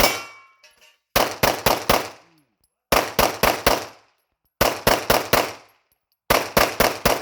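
Pistol fire at swinging targets: one sharp report with a ringing tail at the start, then four quick strings of four shots, about a quarter second between shots and a pause of roughly a second between strings, as each string is fired during one pass of the fast swinger.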